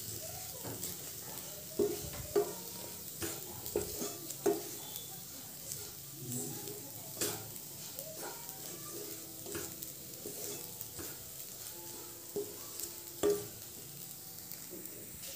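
Wooden spatula scraping and tapping irregularly in a nonstick kadai as crumbly spiced moong dal filling is stirred and roasted in oil, with sizzling underneath.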